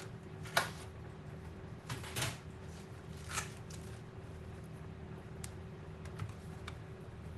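A few light, sharp clicks and knocks of laptop parts being handled and fitted together, the loudest about half a second in, then about two and three and a half seconds in, with fainter ticks later, over a steady low hum.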